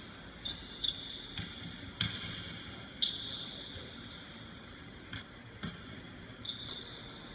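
Basketball bouncing on a hardwood gym floor: several separate, irregularly spaced knocks. A steady faint high-pitched whine runs underneath and swells briefly after each knock.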